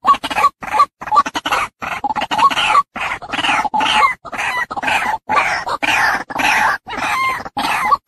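White-breasted waterhen calling: a fast run of short, rough 'ruak' calls, about three a second, each cut off sharply.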